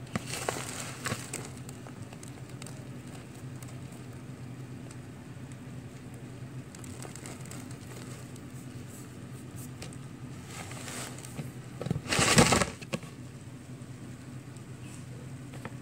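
A hand stirring and scooping through live mealworms in dry rolled-oat bedding: crackling rustles, with the loudest short burst about twelve seconds in. A steady low hum sits underneath.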